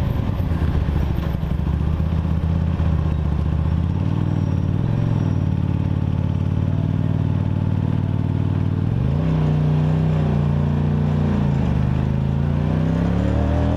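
Kasinski Comet GTR V-twin motorcycle engine with an aftermarket exhaust, heard while riding. The note holds steady, rises about nine seconds in as the bike accelerates, drops briefly near twelve seconds and climbs again.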